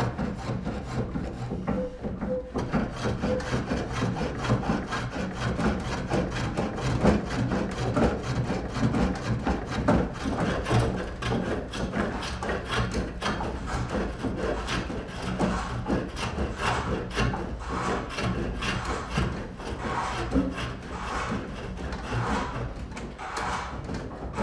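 Spring pole lathe turning a wooden spindle: a hand chisel cuts and scrapes the spinning wood, making a rough, continuous shaving sound that swells and eases as the foot treadle drives the work back and forth.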